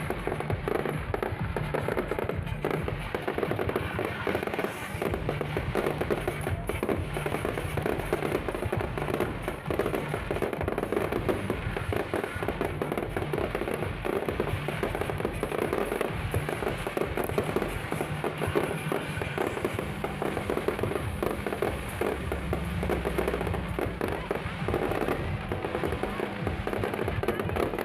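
Fireworks display: a continuous, dense run of bangs and crackling shells, with no pause.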